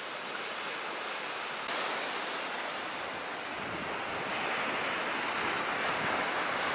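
Small waves breaking and washing onto a sandy beach: a steady hiss of surf that steps up slightly about two seconds in and builds gently toward the end.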